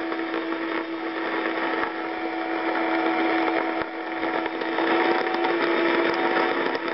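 National NC-57M vacuum-tube receiver playing longwave static through its speaker: steady hiss with constant crackling, over which a steady low whistle and a fainter higher tone hold from a carrier tuned in. The set is taking a little overload from the AM broadcast band.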